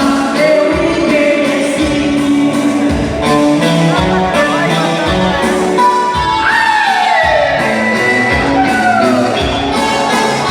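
Dance music with singing over a steady beat; a few long notes slide down in pitch in the second half.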